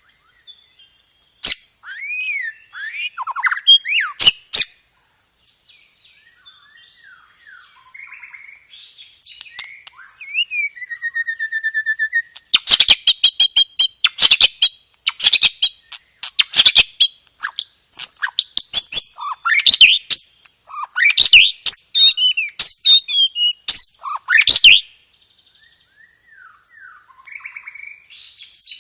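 White-rumped shama (murai batu) singing. It starts with varied whistled phrases that slide up and down. About twelve seconds in, a long, loud, rapid-fire run of sharp notes and whistles begins (the 'roll tembak'), lasts about twelve seconds, and then the song drops back to quieter phrases.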